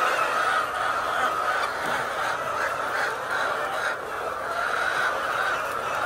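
A large flock of layer chickens calling all at once: a dense, steady chatter of many birds.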